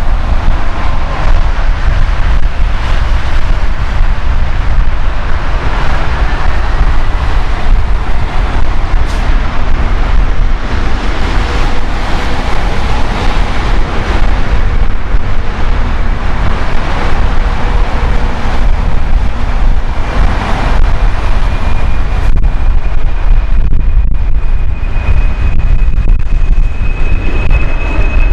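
Strong wind buffeting the microphone as a constant low rumble, with a Boeing 747's jet engines heard faintly beneath it as a thin whine that rises slowly in pitch toward the end as they spool up for takeoff.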